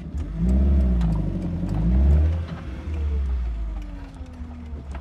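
Maruti Suzuki Gypsy's engine revving loudly, heard from inside the cabin. The pitch climbs and wavers for about two seconds, then falls steadily as the revs drop toward the end.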